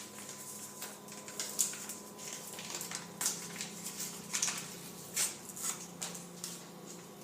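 A small packet of egg wash mix being opened and handled: irregular short, high-pitched crinkles and rustles.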